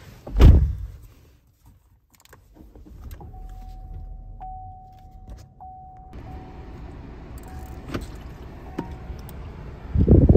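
Chevrolet Malibu cabin: a car door shuts with a heavy thump, then the car is started and runs with a low hum. A steady electronic warning chime tone sounds for several seconds with short breaks. Near the end the climate-control fan comes on with a loud rush of air.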